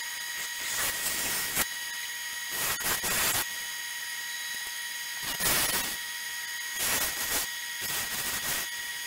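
Wood lathe running with a steady high whine, with five separate bursts of tool-on-wood noise, each about half a second to a second long, as a gouge or abrasive is worked against the spinning black walnut.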